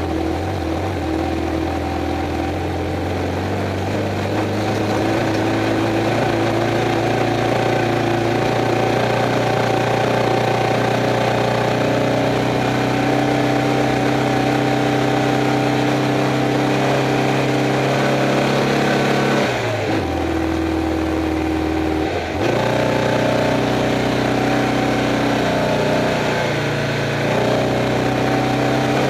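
Stock VW Beetle's air-cooled flat-four engine running hard at a steady pitch, heard from inside the car, with two brief drops in the engine note about 20 and 22 seconds in.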